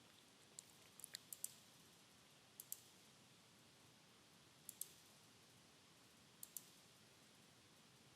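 Computer mouse clicking faintly: a quick run of four or five clicks about a second in, then pairs of quick clicks every couple of seconds.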